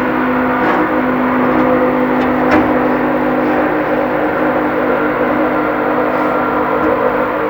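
Steady mechanical whir and hum of machinery running, with a brief click about two and a half seconds in.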